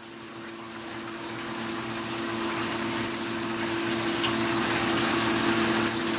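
Small electric water pump running with a steady hum while water pours and splashes, the circulating supply for a Gold Cube concentrator. The sound fades up over the first couple of seconds.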